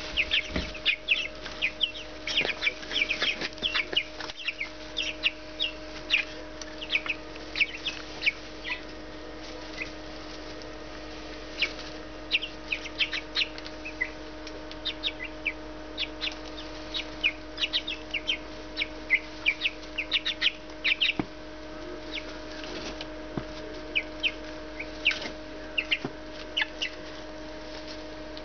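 Cornish Cross chicks about three weeks old peeping: many short, high chirps in quick runs, with a few pauses and fewer chirps near the end, over a steady low hum.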